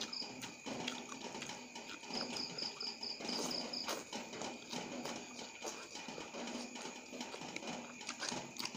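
Close-up wet chewing, smacking and slurping of a person eating instant noodles by hand. A cricket chirps in the background in a short run of about four chirps a second, a couple of seconds in.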